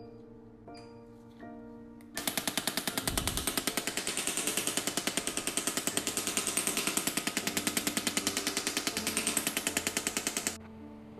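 Electromagnetic shockwave therapy handpiece firing rapid, evenly spaced impacts against the skin, about ten a second, starting about two seconds in and stopping abruptly near the end. Soft background music plays throughout.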